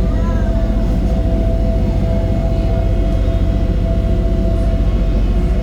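Steady low rumble of a vehicle running, with a constant mid-pitched whine over it.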